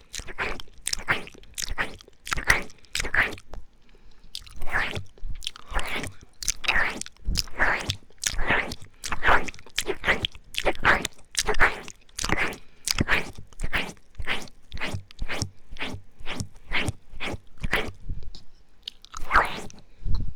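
Close-miked wet mouth sounds of ASMR ear eating: licks, lip smacks and sucking noises about two a second, with a brief pause near the end.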